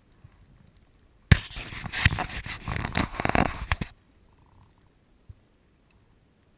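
Crackling, rubbing handling noise from fingers on the head-mounted camera's housing. It starts suddenly with a sharp click about a second in and stops abruptly a little before four seconds.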